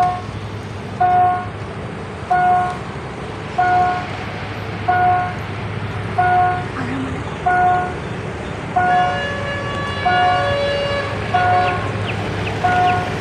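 Railway level-crossing warning signal sounding a repeated electronic ding about every 1.3 seconds over a steady low rumble, with a held horn-like tone joining about two-thirds of the way through.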